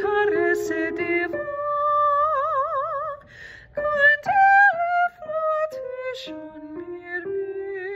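A woman singing a slow French art-song melody, some notes held with vibrato, over lower sustained accompanying notes. There is a short breath about three seconds in.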